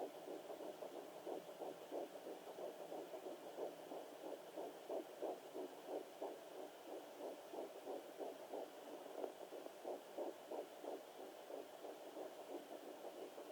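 Fetal heartbeat at 9 weeks picked up through a handheld fetal doppler's speaker: a fast, even train of whooshing pulses, roughly three a second, over a steady hiss.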